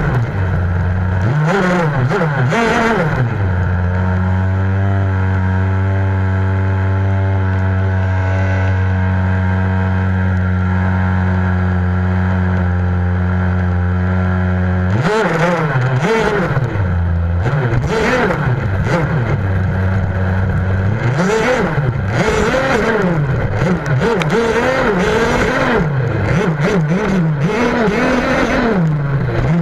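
70cc RCMAX two-stroke petrol engine of a Losi 5ive-T large-scale RC truck, heard close up from on board. It revs briefly, then idles steadily for about eleven seconds. About fifteen seconds in it starts revving up and down again and again as the truck drives, with occasional knocks over rough ground.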